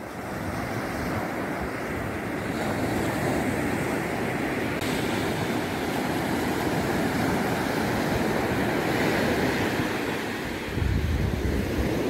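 Ocean surf breaking and washing up a sandy beach, a steady rush of waves, with wind rumbling on the microphone near the end.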